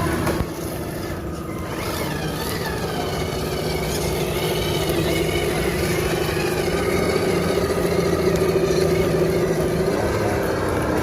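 Radio-controlled off-road crawler truck's electric motor and gears whining, the pitch rising and falling with the throttle, over a steady mechanical hum.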